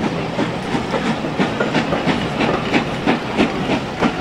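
Wheels of green Southern Railway passenger coaches clacking over the rail joints as the train rolls slowly out of the station, a steady run of sharp clicks several times a second.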